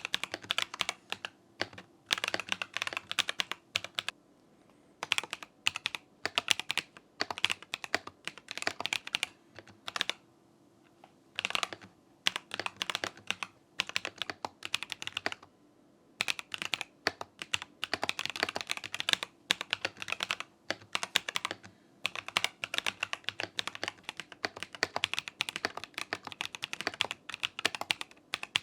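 Typing on a modded Razer BlackWidow V4 75% mechanical keyboard: runs of rapid key clacks in bursts separated by short pauses. The keyboard has extra foam inside and its stabilizers are tuned, lubed and greased with dielectric grease.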